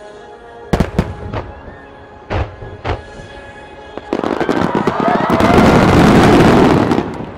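Fireworks display. Separate aerial shell bursts bang about a second in and again between two and three seconds. From about four seconds a dense rapid-fire barrage of bursts and crackling builds to the loudest point, then eases near the end.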